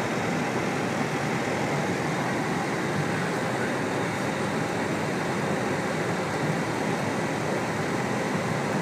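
Steady in-flight cabin noise of an airplane heard from inside the cockpit: an even, unbroken rush of engine and airflow.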